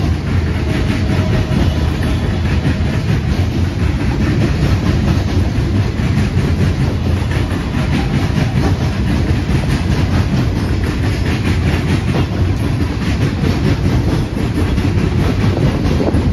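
Freight train of coal cars rolling steadily past: steel wheels rumbling on the rails, with many rapid clicks and knocks from the wheels and cars.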